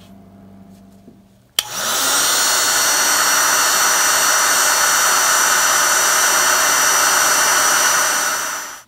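Handheld electric heat gun switched on with a click about a second and a half in, its fan blowing steadily with a thin high whine, then switched off just before the end. It is heating the can of an original electrolytic capacitor to loosen the old contents so the can can be restuffed.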